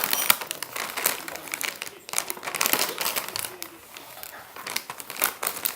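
Plastic snack bag crinkling irregularly as it is handled, with crackling bursts throughout.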